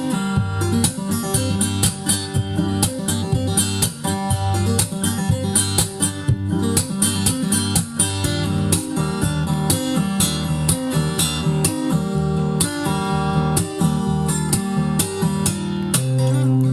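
Acoustic guitar music, quick plucked and strummed notes, played back from a vinyl record on a Lehnert PS 907 turntable with a Shure M75-6S cartridge.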